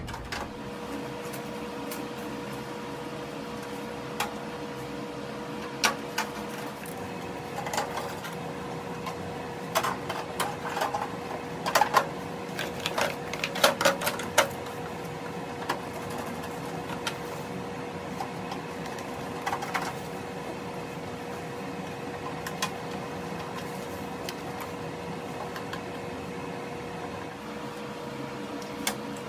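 Scattered clicks and light metallic knocks of a microwave oven's sheet-metal casing, screws and panels being handled and fitted back together, busiest around the middle. A steady hum runs underneath.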